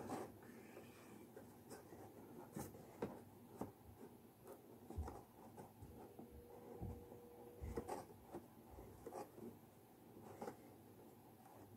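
Faint rustling and rubbing of stiff paper as hands fold and press the tabs of a papercraft mask, with scattered light clicks and a few soft low knocks about halfway through.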